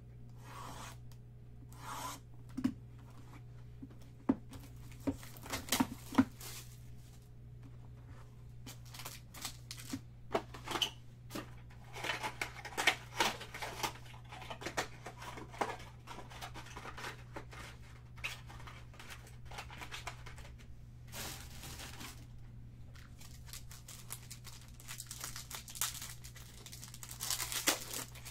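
Trading-card boxes and wrappers being handled and opened: scattered clicks and taps of cardboard and cards, then stretches of tearing and crinkling plastic and foil. Near the end, a foil card pack is torn open with a crinkle. A steady low hum runs underneath.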